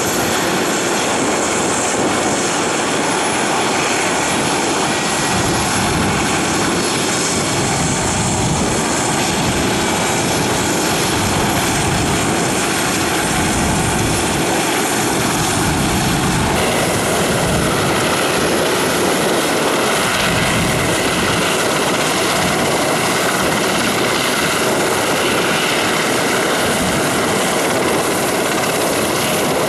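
Westland Sea King helicopter running on the ground, its twin Rolls-Royce Gnome turboshaft engines whining steadily with the turning rotor. About halfway through, the high whine shifts to a lower set of tones.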